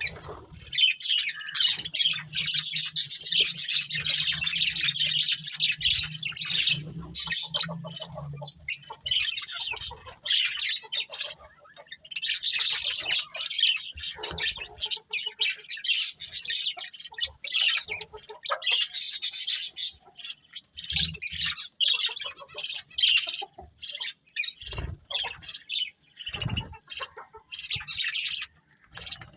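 A colony of budgerigars chirping and chattering continuously in rapid, high-pitched bursts, thinning into short lulls in the second half.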